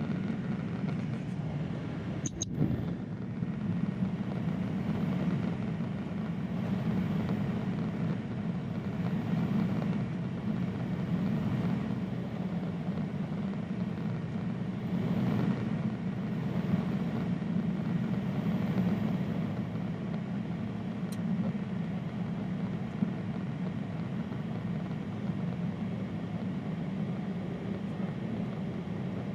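Steady in-flight cabin noise of a Boeing 767-300ER: a low engine and airflow drone heard inside the cabin, even in level throughout. A brief click about two seconds in.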